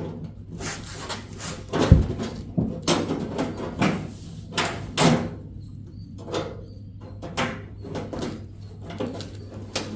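Sheet-metal duct pipe being handled and fitted: a run of knocks, clanks and scrapes, with one heavy thump about two seconds in, over a steady low hum.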